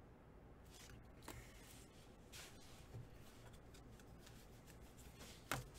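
Near silence with faint rustles and a few soft clicks of trading cards being handled and sorted, with one sharper click near the end.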